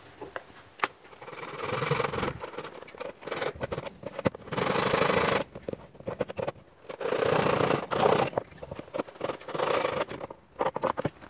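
Backsaw cutting across a wooden block held in a plastic miter box: rasping saw strokes in several spells of a second or two, with short pauses and clicks between.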